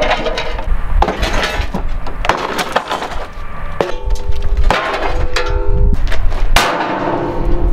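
Metal clanks and knocks with wood cracking as an old truck's wheel and axle set is worked on among loose wooden boards. There is metal ringing about halfway through and a loud burst of hiss near the end.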